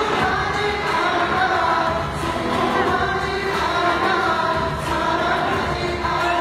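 K-pop group stage performance: the song's music with several voices singing, played loud over the hall's sound system.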